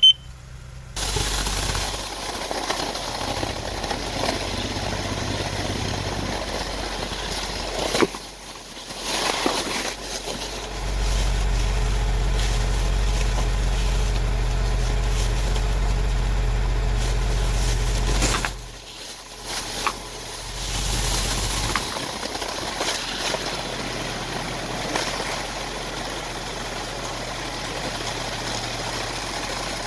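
Car engine idling steadily. Its low hum grows louder for several seconds in the middle and dips away briefly twice, with a sharp click about eight seconds in.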